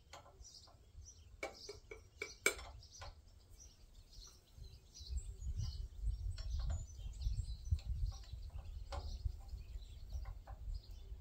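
Small birds chirping over and over, with a few sharp clicks about one to three seconds in as hand tools work on the generator's engine. A low rumble comes in about halfway through.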